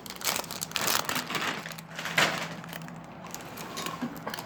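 Foil booster-pack wrapper being torn open and crinkled, in a few short rustling bursts, the loudest a little over two seconds in, over a faint steady low hum.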